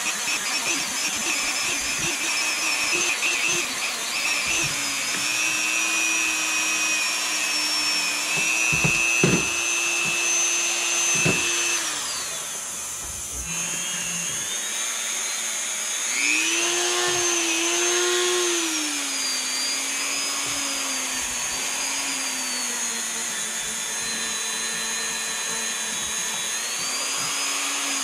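Handheld rotary tool spinning against a Mikuni carburetor body to clean off deposits, a steady motor whine whose pitch sags and recovers as it is worked, with a few knocks about nine to eleven seconds in. The tool nearly winds down about twelve seconds in, spins back up about sixteen seconds in, then slowly drops in pitch.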